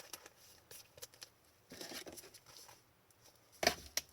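Trading cards being handled: soft rustling and light clicks as cards are slid and shuffled, with a sharper, louder snap near the end.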